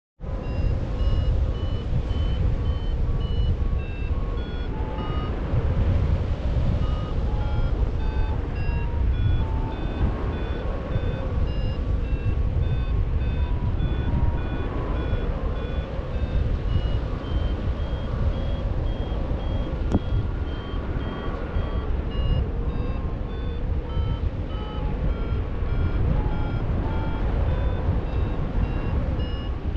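Paraglider's variometer beeping, a fast run of short beeps whose pitch keeps shifting up and down, the sign that the glider is climbing in lift. Under it, steady wind rushing on the microphone is the loudest sound.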